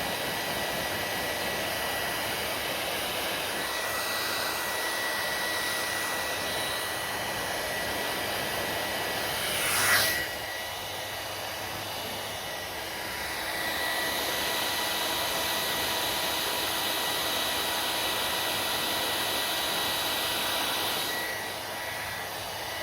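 Hand-held hair dryer blowing, a steady rush of air with a thin motor whine. About ten seconds in there is a brief louder whoosh, after which it runs quieter for a few seconds, then louder again, and it drops in level near the end.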